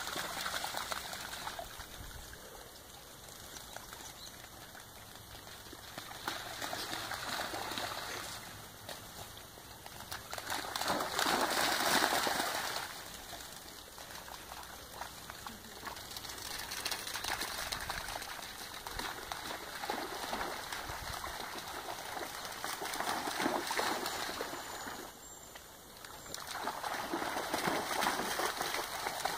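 Dogs running and splashing through shallow floodwater on a lawn, the splashing coming in waves every few seconds and loudest about twelve seconds in.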